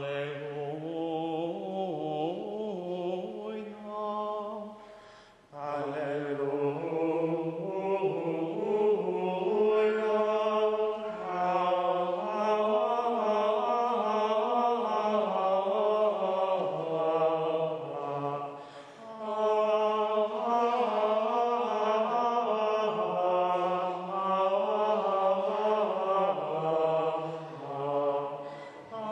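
Gregorian plainchant of the Easter Mass propers sung in Latin by male voices: long, flowing melismatic phrases on sustained notes, with short breaks for breath.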